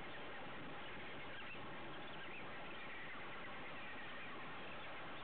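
Steady rush of wind and sea water, with faint high squeaky calls from the feeding seabirds about two to three seconds in.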